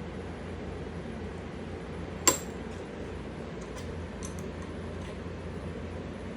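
A single sharp metallic clink about two seconds in, then a few faint light clicks, as the metal parts of the vise and the mounted angle grinder are handled; the grinder is not running. A steady low hum underneath.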